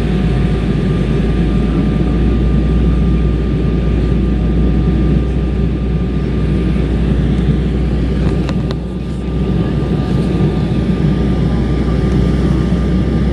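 Steady cabin noise inside an Airbus A320 jet airliner: a continuous low rumble and rush from the engines and airflow, with a faint steady tone. About eight seconds in, it briefly dips and there are a couple of light clicks.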